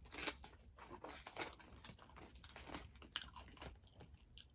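Close-up mouth sounds of someone chewing a mouthful of burrito: irregular wet smacks and soft crunches.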